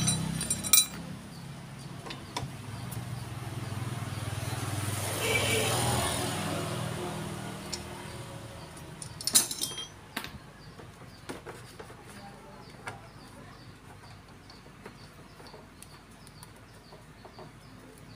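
Sparse metallic clinks and clicks from tools and engine parts as the cam chain tensioner rollers of an opened Honda Revo FI engine are handled, with a sharp click about a second in and another about halfway through. A vehicle engine runs faintly in the background and fades out over the first several seconds. In the second half a bird chirps about twice a second.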